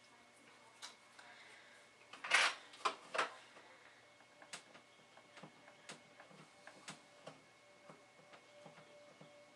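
Diamond painting pen and drills being handled on a desk: a short clatter of a few scrapes and clicks about two seconds in, then light, scattered clicks and taps.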